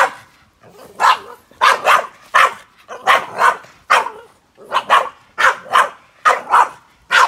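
Boston terrier barking repeatedly at the flames of a charcoal grill: sharp, loud barks about two a second, many coming in quick pairs.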